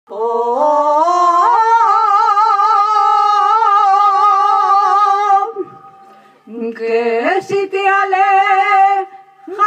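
Jota singing: a voice holds long notes with strong vibrato in two phrases, each opening with an upward slide. There is a short break about five and a half seconds in.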